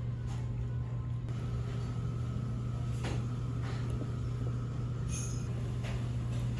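Steady low hum of room ambience, with a few faint clicks of a metal spoon against a dessert dish.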